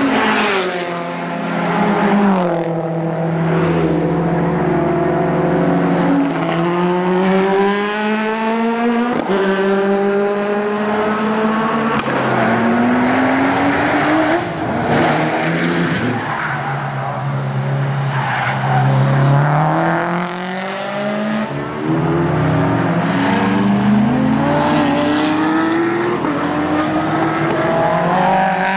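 Race car engines on a circuit, several cars in turn, revving up through the gears with a sudden drop in pitch at each upshift and falling away as they slow for corners.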